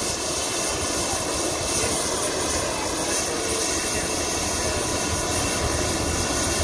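Helicopter idling on the ground, its turbine engines and turning main rotor running steadily. A constant whine with several high held tones sits over a rushing noise.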